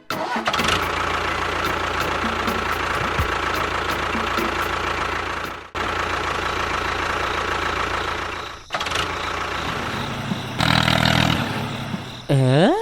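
A motor running steadily, cut off abruptly twice and resuming each time, with a swooping tone near the end that dips and then rises in pitch.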